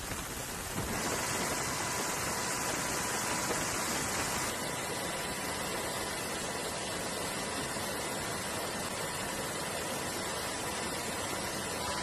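Steady rushing noise of wind and sea at a ship, with a faint steady whine. The sound changes abruptly about a second in and again about four and a half seconds in.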